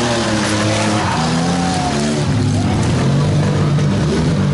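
Several demolition derby vans' engines revving hard at once, their pitch rising and falling as they push against each other.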